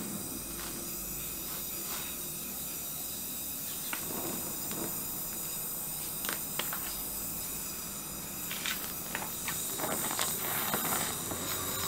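Gas torch flame hissing steadily while a filler rod is melted onto a steel hammer head, with scattered small crackles and ticks that come more often in the last few seconds.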